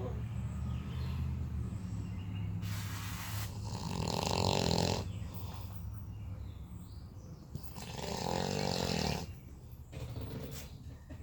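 A sleeping man snoring loudly: two long snores, each about two seconds, some four seconds apart, over a steady low hum.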